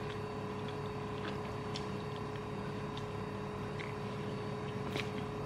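Metal spoon clicking faintly against a plastic food container about half a dozen times at irregular spacing, over a steady background hum with two held tones.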